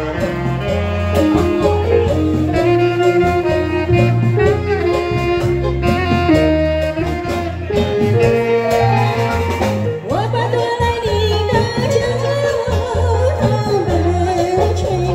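Live band playing a song intro with a steady beat, then a woman starts singing about ten seconds in.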